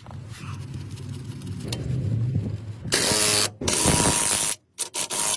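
Power tool, most likely a pneumatic impact wrench, running in two loud bursts about three seconds in, the first with a fast even rattle. A low hum comes before the bursts, and the sound cuts off abruptly near the end.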